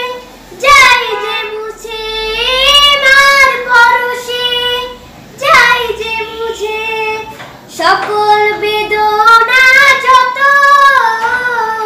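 A boy singing a Bengali song solo, with no accompaniment: three phrases of long, wavering held notes.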